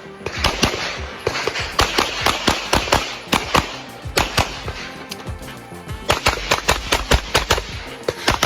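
A rapid run of sharp gunshot-like bangs, several a second, mixed with music.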